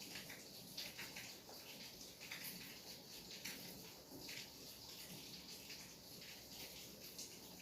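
Rain falling steadily: a faint, even hiss with frequent separate drop splashes.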